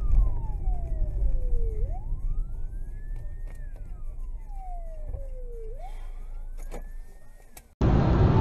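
A siren wailing, rising and falling slowly about every four seconds, over the low road rumble of a car that is slowing down. Near the end it cuts suddenly to louder, steady car and road noise.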